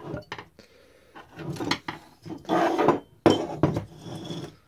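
Metal chainsaw engine parts knocking and scraping together as a loose cylinder is handled and set over the piston and crankcase on a workbench, in several short bouts of clatter.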